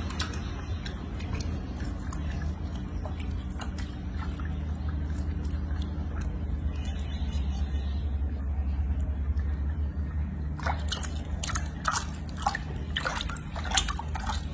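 Water sloshing and dripping in a sink as a baby monkey is washed by hand, with a run of sharp wet splashes and clicks in the last few seconds, over a steady low hum.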